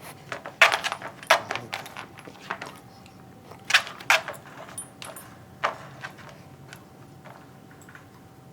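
Irregular light metallic jingles and clinks as a bulldog puppy moves about, coming every second or so and thinning out over the last few seconds.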